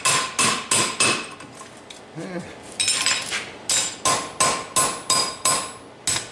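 Hammer blows on a hot steel chain repair link against the anvil, each with a short metallic ring: four quick strikes, a short pause, then a steady run at about three strikes a second, bending the link closed.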